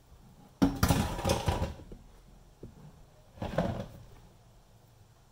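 Philips Essential Airfryer XL's basket being slid back into the fryer: a rattling, scraping slide lasting about a second, then a shorter rattle a couple of seconds later.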